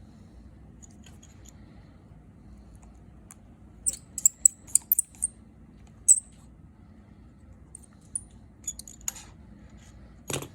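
Light, sharp clicks and taps in irregular clusters, with the loudest near the end, from handling the reassembled iPhone 6s Plus.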